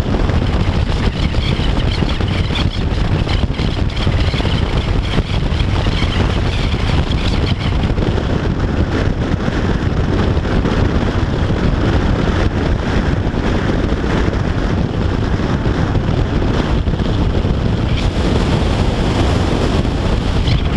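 Steady wind rush on the microphone over the running noise of a Yamaha FJR1300AE's inline-four engine and tyres, cruising at a constant speed on a motorway.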